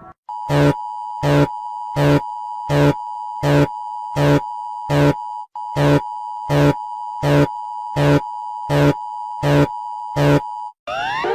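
Emergency alert alarm: a steady high tone with a loud, regular pulse about every three-quarters of a second, fourteen pulses in all. The tone drops out briefly about halfway. Near the end it stops and a quick series of rising, boing-like glides begins.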